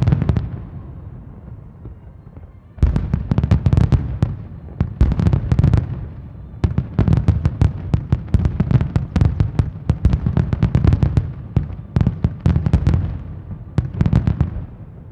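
Aerial fireworks: shells bursting in rapid succession with dense crackling over a deep rumble. A burst dies away just after the start, then after a lull of about three seconds a long barrage of bangs and crackles runs until near the end.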